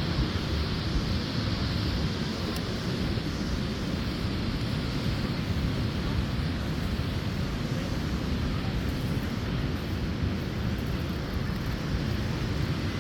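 Steady rumbling rush of wind buffeting the microphone, with no single event standing out.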